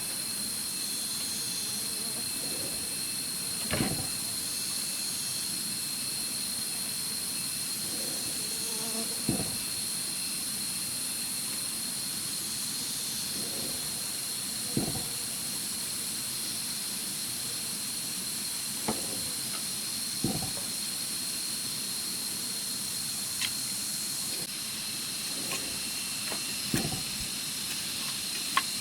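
A steady high hiss with a thin high tone held above it, broken by a short dull knock every few seconds.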